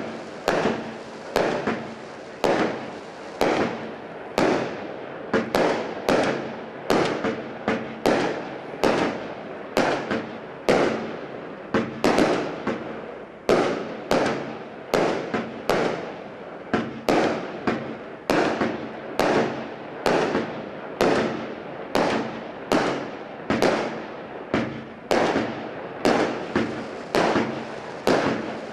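Standard Fireworks 'Standing Ovation' 72-shot single-ignition firework cake firing shot after shot at an even pace, a little more than one a second. Each shot is a sharp bang that dies away quickly before the next.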